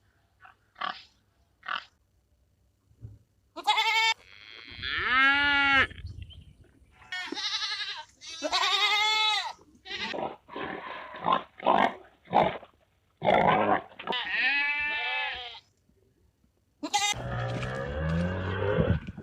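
Farm animals calling: a few short grunts, then several long, wavering bleats with short grunts between them, and a rougher call near the end.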